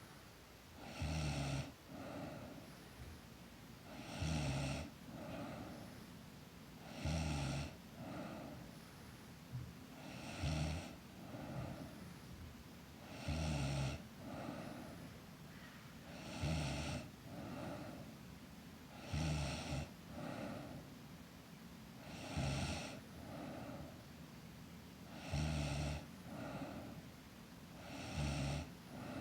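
A sleeping girl snoring steadily, one loud snore about every three seconds, each followed by a softer breath out.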